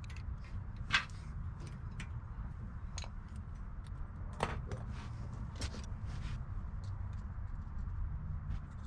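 Scattered light metallic clicks and clinks of hand tools and wheel-hub parts being handled and set down, over a steady low rumble.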